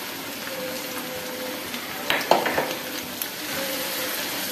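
Chicken karahi sizzling in a nonstick wok as a silicone spatula stirs it, the gravy being cooked down until dry. A few sharp knocks of the spatula against the pan about two seconds in.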